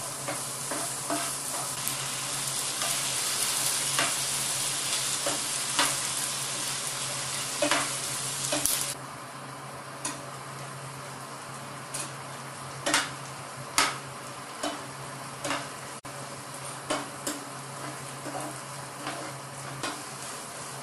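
Chopped onions and garlic sizzling in hot oil in a non-stick frying pan, stirred with a metal spoon that scrapes and clicks against the pan. About nine seconds in, the sizzle drops abruptly to a quieter frying, with tomatoes in the pan, and the spoon's clicks and scrapes stand out.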